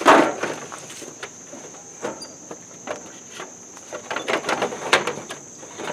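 Knocks, clicks and scrapes of a plastic tractor housing panel being worked into place, loudest right at the start and again in a cluster near the end. A steady high insect drone runs underneath.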